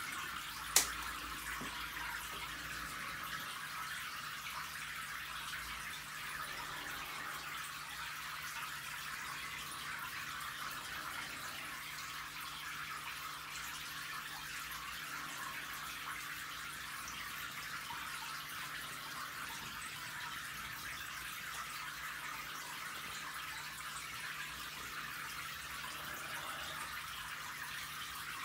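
Steady trickling and splashing of aquarium water, with a faint low hum under it. A single sharp click comes about a second in.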